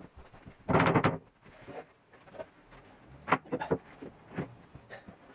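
Irregular knocks and bumps from a plywood desk being handled and shifted: a louder bump about a second in, then a quick cluster of sharp knocks a couple of seconds later.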